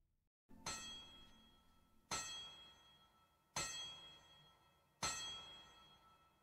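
A bell-like metallic clang struck four times, about one and a half seconds apart, each ringing and fading before the next.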